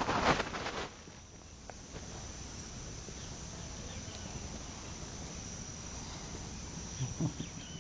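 Crickets chirring steadily, a thin high even tone, with a brief loud rustle at the start and a couple of soft knocks near the end.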